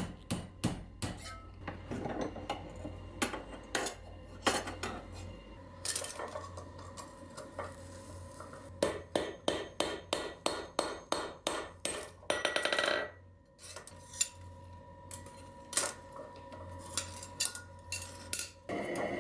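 Steel being hammered and clattered while scrap strands are attached to a forged mop base: scattered sharp blows with the metal ringing after them. In the middle comes a quick even run of about three strikes a second, then a short rattling burst.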